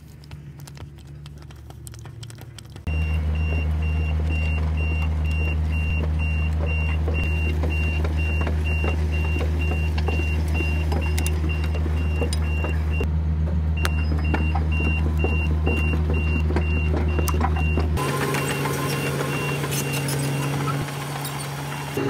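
Komatsu 200 excavator's diesel engine running steadily, with a high beep repeating rapidly over it. It starts about three seconds in. Near the end the sound turns harsher and noisier, with many small clicks.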